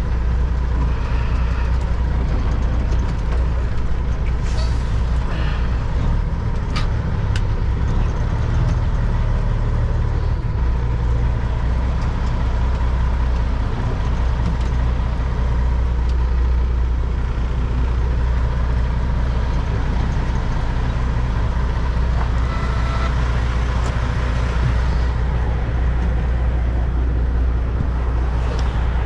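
Kenworth W900 semi truck's diesel engine running steadily at low speed during slow manoeuvring, with a few brief clicks a few seconds in.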